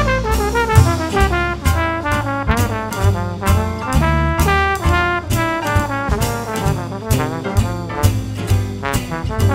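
Big band jazz: a brass section of trombones and trumpets playing a swinging ensemble line, with a live drum kit, sticks on snare, toms and cymbals, accenting along with it.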